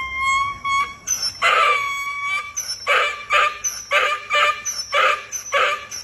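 Donkey braying: a long drawn-out note, then a loud rhythmic run of hee-haw strokes, about two to three a second.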